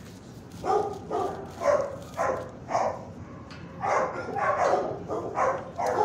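A dog barking repeatedly: about ten short barks in two runs, with a brief pause near the middle.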